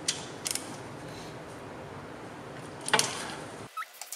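Metal hand tools clicking and clinking against the car's metal parts over a steady background hiss, with a louder metallic clank about three seconds in. The hiss stops abruptly near the end, followed by a few quieter ticks.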